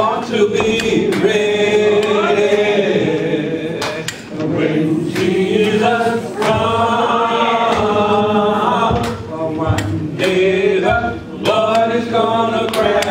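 Unaccompanied (a cappella) gospel singing by several voices together, no instruments, the notes held and sliding in a slow, continuous line.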